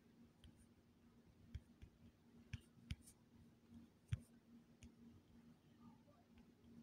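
Near silence with scattered faint taps and clicks, irregular and a second or so apart, the sharpest about four seconds in: fingers tapping and tracing on a phone's touchscreen while drawing and undoing strokes. A faint steady hum lies underneath.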